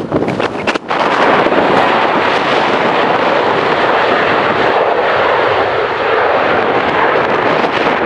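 Jet aircraft engine noise that jumps up suddenly about a second in and then holds loud and steady, with a few sharp knocks of wind on the microphone just before it.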